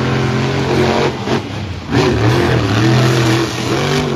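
Monster truck engines at full throttle, racing side by side off the start. The engine note dips briefly about two seconds in, then climbs again.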